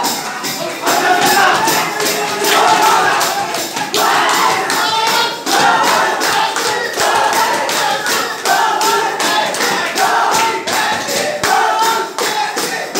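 A room full of football fans chanting together in unison over a steady, fast beat on hand drums.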